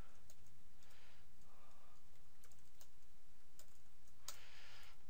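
Typing on a computer keyboard: irregular keystroke clicks, with a louder cluster of keystrokes about four seconds in, over a faint steady low hum.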